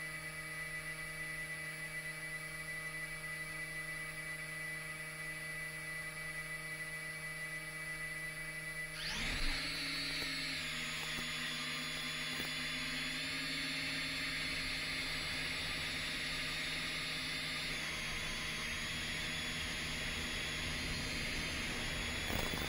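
10-inch FPV quadcopter: a steady hum and whine while it sits on the ground, then about nine seconds in the motors spool up for takeoff and the propellers run with a steady, loud whirring whine as it flies.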